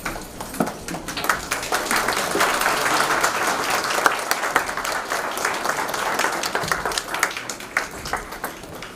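Audience applauding, a dense patter of many hands clapping that swells after about two seconds and thins out toward the end.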